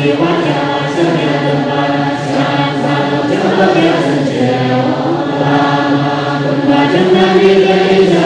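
Tibetan Buddhist chanting by a group of voices: a low, steady drone with a slow melodic line above it.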